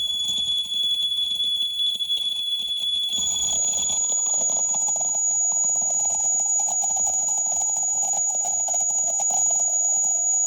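Live noise music: sustained piercing high tones over a dense, grainy noise bed. About three seconds in, the high tone jumps up in pitch and a harsh mid-range drone comes in and holds.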